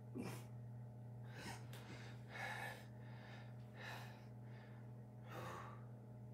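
A person breathing hard from exertion during push-ups, with five forceful breaths about one to one and a half seconds apart.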